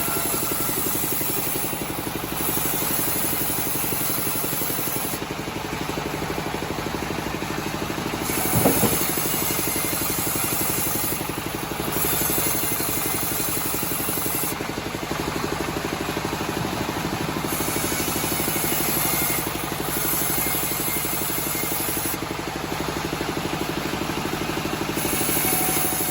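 Homemade band sawmill running steadily, its drive droning while the blade saws through teak wood, with a brief thump about nine seconds in.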